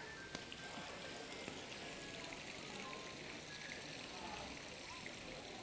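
Busy airport terminal ambience: a steady hiss of crowd and hall noise with faint music, and a single click about a third of a second in.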